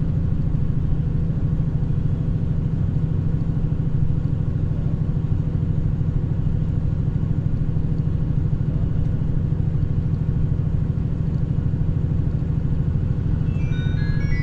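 Steady low drone of a vehicle's engine and road noise while driving, heard from inside the moving vehicle. Near the end a tinkling melody of short chime-like notes begins.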